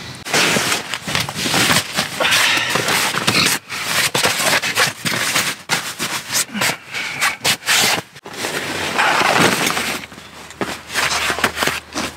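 Heavy canvas ground sheet being spread out and smoothed by hand over dry leaf litter: loud rustling and scraping in quick strokes. About ten seconds in it eases off into lighter handling noises and clicks.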